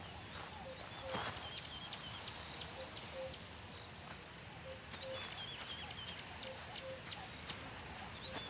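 Faint wildlife ambience: short low animal calls repeating roughly once a second, small high chirps, and a steady thin high hum.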